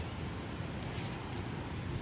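Steady rushing of a creek's flowing water, mixed with a low rumble of wind on the microphone.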